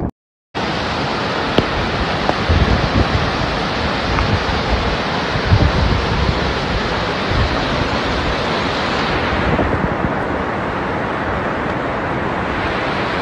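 Fast-flowing floodwater rushing as a steady, dense noise, with wind buffeting the microphone in low thumps. It starts after a brief silent gap about half a second in.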